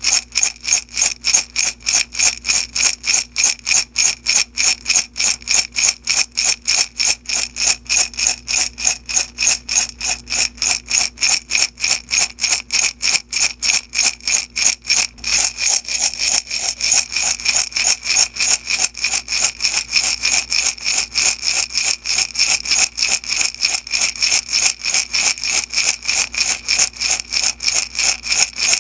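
Small beads shaken in a glass jar in a steady rhythm of about three to four shakes a second, each shake a bright rattle with the jar ringing. About halfway through the rattle turns fuller and brighter.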